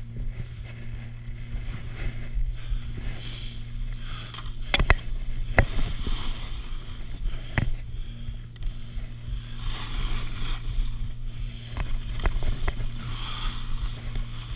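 Skis swishing and scraping over packed snow in a run of turns, the hiss swelling and fading with each turn, with a few sharp clacks in the middle and a steady low hum underneath.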